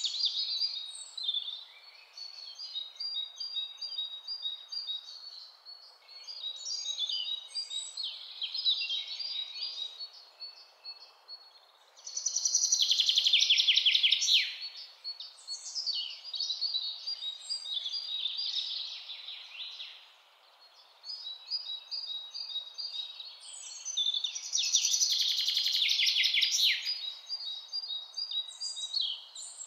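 Birdsong: several birds chirping and singing in rapid trills over a faint hiss, loudest in bursts of fast trilling about twelve seconds in and again about twenty-five seconds in.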